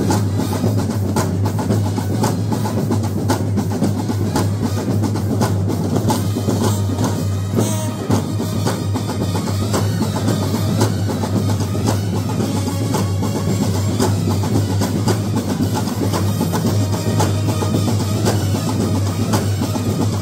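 Massed Kerala band sets, brass bands of several teams, playing together, loud and unbroken, with a dense beat of snare and bass drums.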